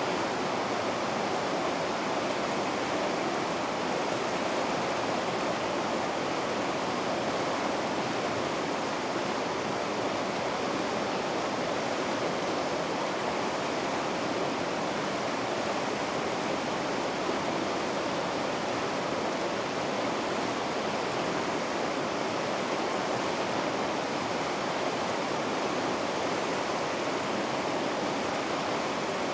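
Whitewater of river rapids rushing over rocks, a steady unbroken wash of water noise.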